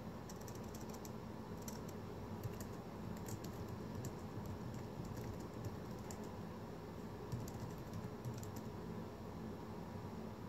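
Brass spinning top spinning on a clear concave dish: a steady low hum with scattered faint, irregular ticks.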